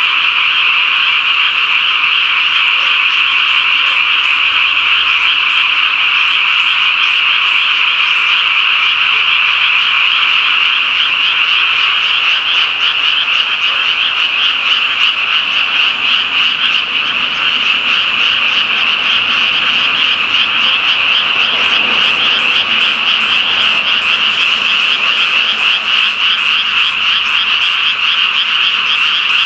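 A dense chorus of many frogs calling together at a pond, a continuous high-pitched croaking that never pauses.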